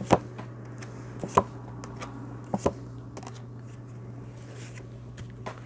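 A few short, light taps, about three clear ones in the first three seconds, over a steady low hum.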